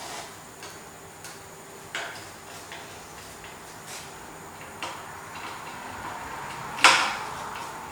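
Scattered light clicks and knocks of objects being handled, with one sharp, much louder knock about seven seconds in.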